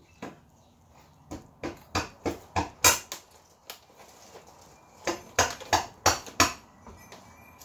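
Sharp taps of a chisel being worked around the base of an old ceiling light fixture, breaking the paint that bonds it to the ceiling. They come in two runs of about three taps a second, the first starting about a second in and the second about five seconds in.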